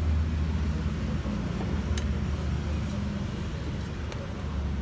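Steady low rumble of street traffic, with a few light clicks of metal utensils on the takoyaki pan.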